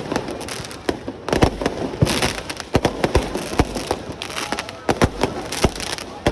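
Fireworks going off in a rapid, irregular string of sharp bangs, with bursts of crackling about two seconds in and again near the end.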